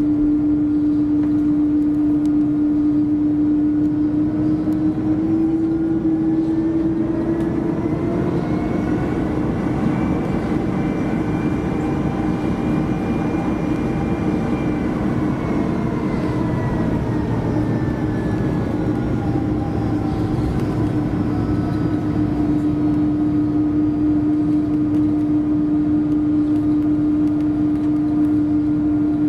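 Airbus A330-200 cabin noise: a steady rumble of its Pratt & Whitney PW4168A turbofan engines and airflow under a strong, steady hum, with a whining engine tone that rises and then falls back.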